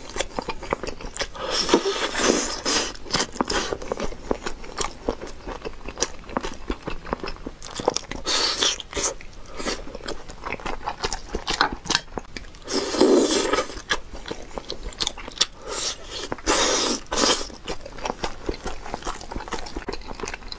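Close-miked chewing of a bite of glazed chicken wing: wet mouth sounds and many small clicks, with a few louder bites or smacks spread through.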